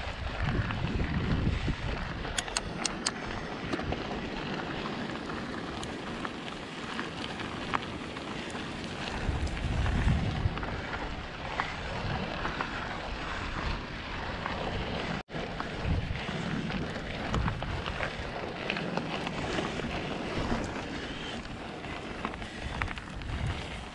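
Wind buffeting an action camera's microphone during a mountain bike ride on a dry dirt and gravel trail, in gusts, over the rolling noise and light rattle of the bike. The sound cuts out for an instant about fifteen seconds in.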